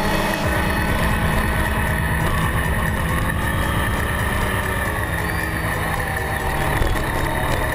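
Sportbike engine running steadily at speed on a race track, heard from a camera mounted on the bike's tail.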